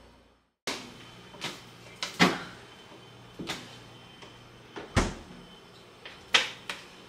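Refrigerator door being opened and shut, with a string of sharp knocks and clunks, about eight in all, as things inside are handled. It starts after a brief silence about half a second in.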